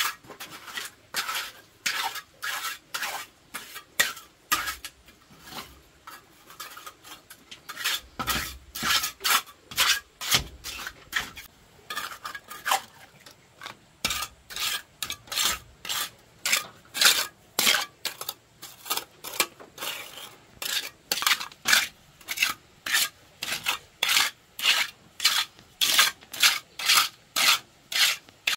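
Steel hand trowel scraping and smoothing wet cement on a floor, a steady rhythm of gritty strokes, about two a second.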